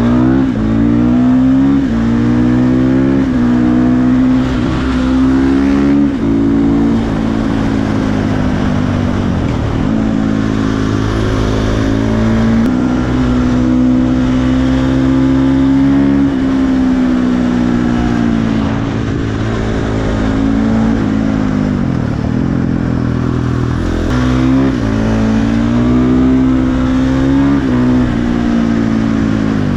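KTM 450 supermoto's single-cylinder four-stroke engine heard from the rider's seat, accelerating and running through the gears, its pitch climbing, then dropping sharply at each shift. The revs fall away several times as the bike slows, then build again.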